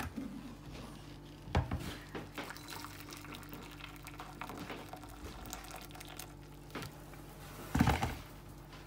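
Boiling water poured from a De'Longhi electric kettle into a ceramic bowl, a thin steady trickle, with a short knock about a second and a half in and another near the end as the kettle is handled on its base.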